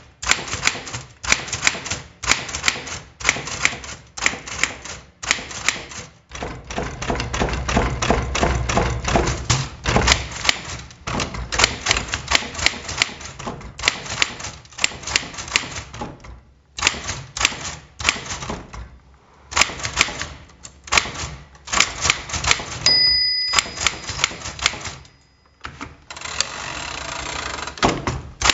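Smith Corona Sterling manual typewriter being typed on: sharp key strikes a few a second, broken by short pauses. About three quarters of the way through, the margin bell rings once and fades, and near the end the carriage is returned with a longer sliding sound.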